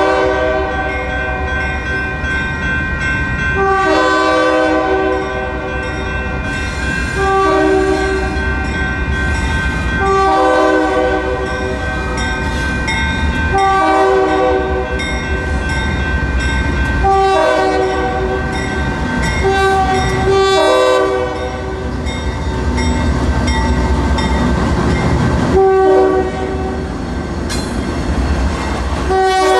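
Diesel freight locomotive's air horn sounding a chord of several notes in a long string of blasts, each about three seconds with short breaks between, over the rumble of the approaching train. The horn has an odd, weird sound. Near the end the locomotive passes close by.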